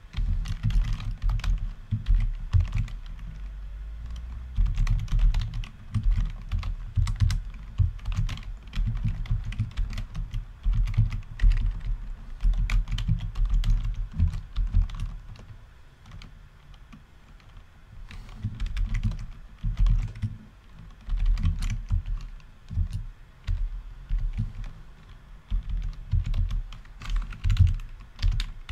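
Typing on a computer keyboard: quick, irregular keystrokes in runs, with a short lull about halfway through.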